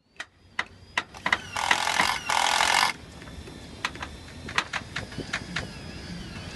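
Decking installation work: irregular sharp knocks and taps, with two short, loud bursts of harsh noise about one and a half and two and a half seconds in.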